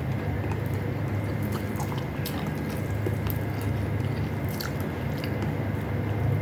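Close-up chewing and biting of canned beefloaf and rice, with scattered wet mouth clicks, over a steady low hum.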